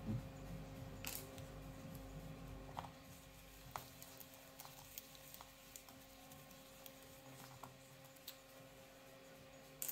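Faint, scattered clicks and ticks of a precision T5 Torx screwdriver working small screws out of a laptop's base panel, about half a dozen over the stretch, over a faint steady hum.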